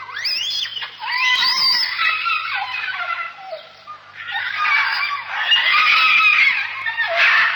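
Birds calling, many overlapping calls with rising and falling pitch, thinning out briefly in the middle and growing loudest in the second half.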